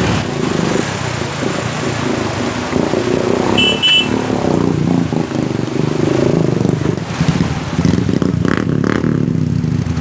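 Royal Enfield Himalayan's single-cylinder engine revving unevenly as the bike is ridden through a rocky river crossing. Two short high beeps sound about four seconds in.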